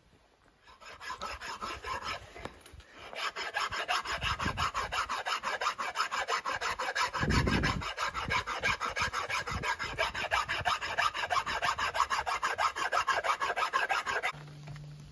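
Hand file scraping along a wooden axe handle, shaping it down in rapid, even strokes. It starts with a brief patch of scraping, runs steadily from about three seconds in, and stops about a second before the end.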